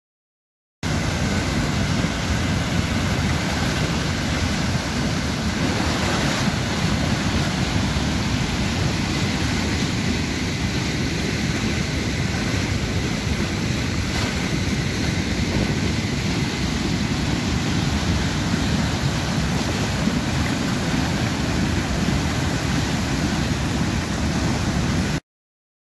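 Floodwater of a swollen mountain stream rushing and churning as whitewater over rapids and a stone weir, a steady loud rush; the stream is in spate after days of heavy rain.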